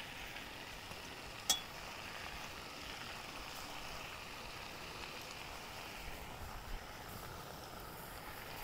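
Food sizzling faintly in a frying pan, with one sharp metal clink about a second and a half in.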